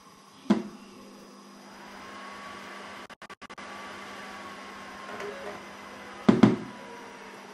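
A laptop's optical drive spinning up and reading a boot disc as the computer restarts: a steady whine with a faint whir under it. A sharp knock comes about half a second in and another near the end.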